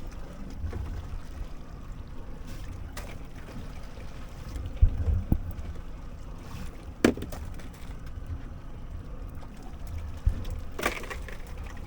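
Water sloshing and trickling over a low rumble, with a few sharp knocks.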